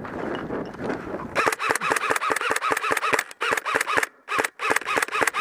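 Airsoft gun firing on full auto in bursts of rapid clicks, about ten shots a second. The bursts start just over a second in and are broken by brief pauses.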